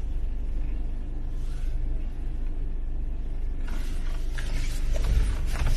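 Steady low rumble of a car being driven, with a patch of hiss rising about four seconds in.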